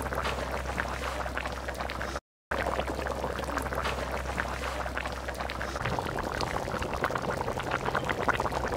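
Rohu fish curry in coconut-milk gravy, with kumro bori, bubbling at a simmer in the pot: a dense crackle of small bursting bubbles. A low hum under it stops about six seconds in, and the sound cuts out for a moment a little after two seconds.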